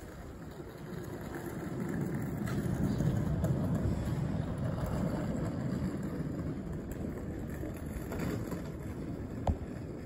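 A low rumble that swells over a few seconds and slowly fades, with one sharp click near the end.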